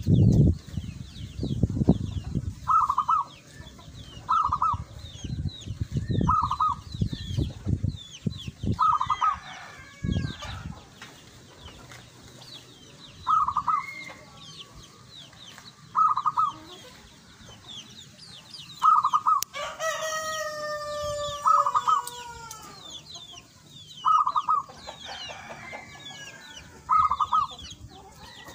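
Caged zebra dove (perkutut) singing in short repeated cooing phrases, one every two to three seconds. A rooster crows once about twenty seconds in, and small birds chirp faintly behind. Loud low thumping runs through the first ten seconds.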